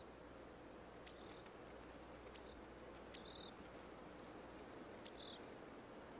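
Faint natural ambience: short high chirps from a small animal every second or two over a soft hiss, with scattered faint ticks.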